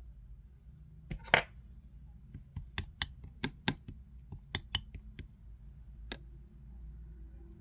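Slime being handled, letting off a string of sharp clicking pops, about a dozen in five seconds, with the loudest a little over a second in and again near the middle.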